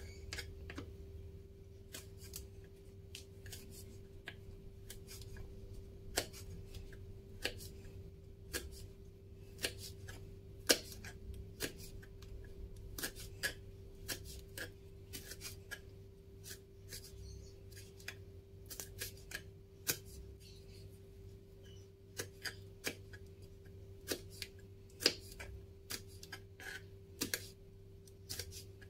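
Kitchen knife slicing red chilies on a wooden chopping board: light, irregular taps and clicks of the blade striking the wood, over a faint steady hum.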